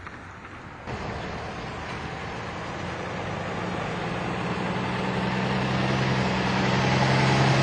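An engine with a steady low hum, growing steadily louder as it nears, then cut off suddenly.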